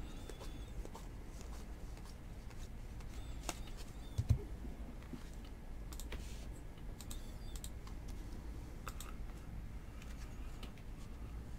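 Trading cards being flipped through by hand: soft, scattered clicks of card against card, with one dull thump about four seconds in. A low steady hum runs underneath.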